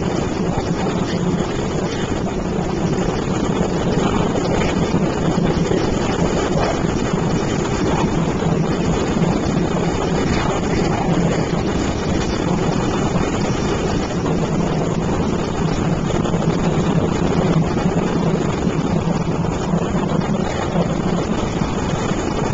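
Boat engine running at a steady, unchanging speed, a loud even drone with no break.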